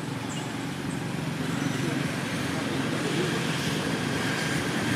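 Steady outdoor background rumble and hiss, growing slightly louder about a second and a half in.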